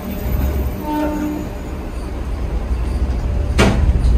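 Electric train's camshaft-controlled traction motors starting to pull away, heard from inside the carriage: a low hum builds steadily. A short burst of hiss comes near the end.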